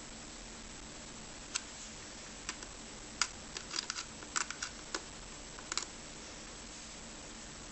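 Scattered sharp clicks and small knocks of a screwdriver working at a stuck screw, about a dozen of them from a second and a half to six seconds in, some in quick pairs.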